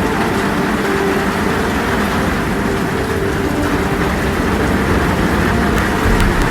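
Storm ambience of heavy rain and wind: a steady, dense rushing noise over a low rumble, with faint wavering tones like wind howling.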